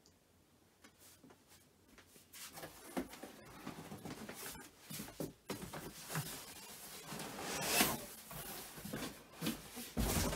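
Cardboard packaging and a mattress being shifted and handled: rustling and scraping with a few scattered knocks, starting after a couple of quiet seconds.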